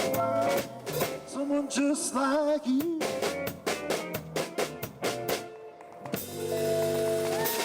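Small live band playing with a drum kit, with drum hits and bending pitched notes. The band ends the song on a final chord held for the last second and a half.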